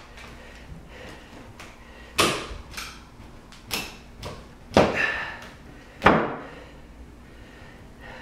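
Wooden newel post at the foot of a staircase being rocked by hand, giving about five sharp knocks and creaks roughly a second apart, the last the loudest: the post shifts in its mounting and is not solidly anchored.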